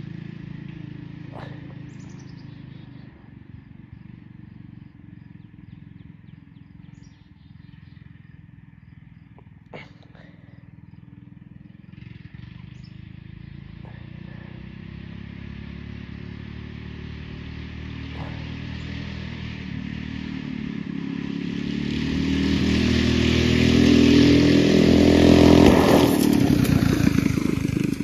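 A go-kart's small engine runs out of sight, then grows much louder and higher in pitch as the kart accelerates toward the camera, loudest a couple of seconds before the end. A few faint clicks come in the quieter first half.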